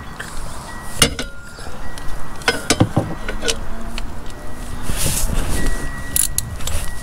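Irregular metallic clinks and clatter of hand tools and a 17 mm socket being handled under an ATV engine, ready to tighten the oil drain plug.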